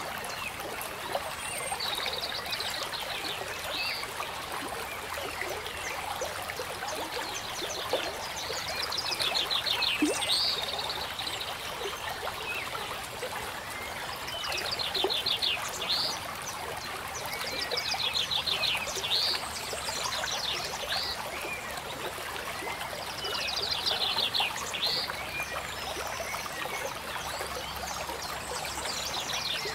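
Steady running-stream ambience with a bird singing over it: a short rapid trill followed by quick rising notes, repeated every few seconds.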